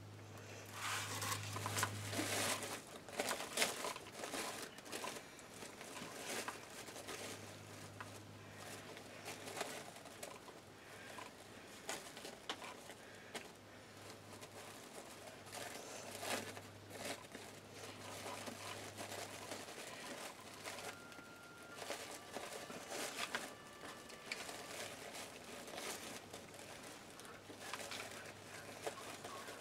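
Plastic deco mesh and ribbon rustling and crinkling in irregular, short bursts as hands gather and tie a bow on a mesh wreath, loudest about a second or two in, over a faint steady low hum.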